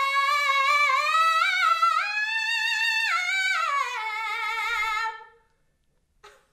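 A woman's soprano voice singing unaccompanied: a riff on one held vowel that climbs through quick, wavering notes, slides back down, holds, and stops about five seconds in.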